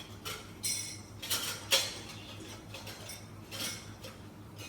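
Clinks and clatter of metal and ceramic espresso gear being handled: a handful of short knocks, the sharpest about two seconds in, over a low steady hum.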